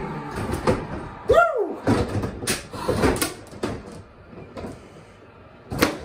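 Bubble hockey table in play: hard plastic clacks and knocks of the rod-spun players and the puck striking the figures and boards, coming irregularly and loudest about a second and a half in and again near the end. A short rising-and-falling tone sounds about a second in.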